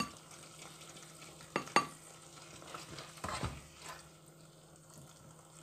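A metal spoon clinks and scrapes against a ceramic bowl a few times as chunky meat-and-vegetable sauce is spooned onto spaghetti. The loudest clinks come a little under two seconds in and around three and a half seconds in, over a low steady hum.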